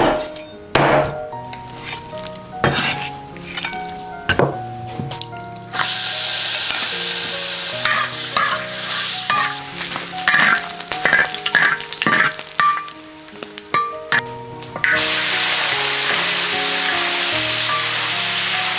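A few sharp knocks, then ingredients hitting hot oil with a sudden loud sizzle about six seconds in. The food is stirred with clattering strokes, and a second burst of sizzling starts near fifteen seconds in.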